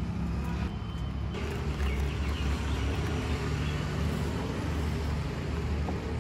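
Street traffic noise: a steady low engine rumble from motor vehicles, with faint background street bustle.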